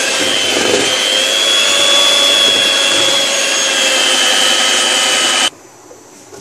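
Electric hand mixer running steadily with a high motor whine, its beaters whisking cake batter in a bowl; it stops abruptly near the end.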